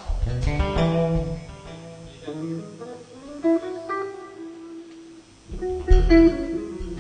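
Guitar strumming a few chords and picking loose notes, with low bass notes near the start and again about six seconds in.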